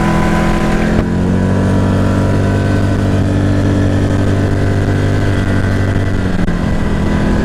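ATV engine running under steady throttle. Its pitch drops about a second in, holds level, then shifts again near the end.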